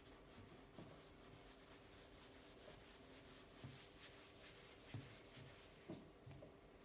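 Faint rubbing of a polishing cloth on the painted steel fork, with a few soft knocks and a low steady hum underneath.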